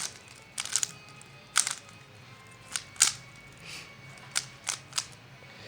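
Freshly lubricated MoYu MF3RS 3x3 speed cube being turned by hand, its layers giving about eight sharp, irregular clicks as it is tried out after two drops of Maru lube.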